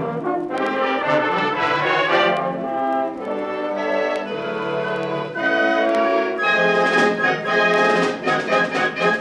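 High school band playing a brass-led passage of held chords, trombones and trumpets prominent. It grows louder and brighter about two-thirds of the way through.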